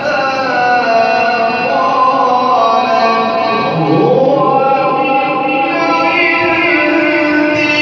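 A man's solo voice in slow, ornamented Arabic-style melodic recitation, holding long notes over a steady harmonium drone. About halfway through his pitch swoops up and back down in a wavering run.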